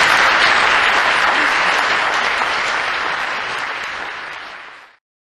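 Audience applauding, dying down a little and then cut off abruptly near the end.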